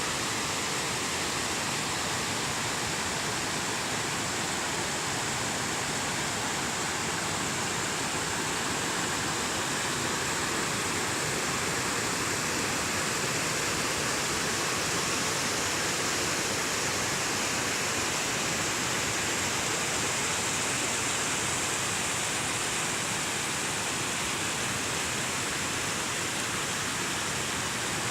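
Steady rushing of flowing water, an even, unbroken hiss with no separate events.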